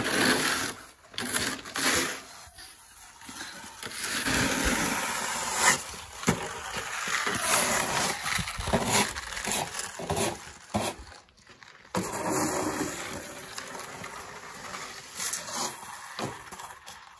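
Snow shovels scraping and pushing wet slush along a concrete driveway, in long strokes with short pauses between them.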